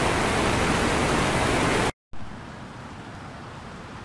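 Fast-moving floodwater rushing down a street, a loud steady rush. It cuts off abruptly about two seconds in, and a much quieter steady rush of water follows.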